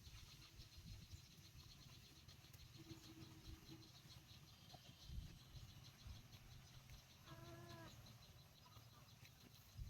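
Near silence: a faint low rumble of background noise, with one brief, faint pitched call about seven seconds in.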